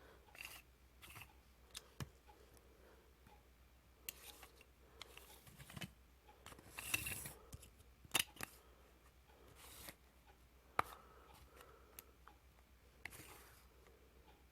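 Faint, irregular sharp clicks and short scraping or snipping noises of small objects being handled, a few seconds apart.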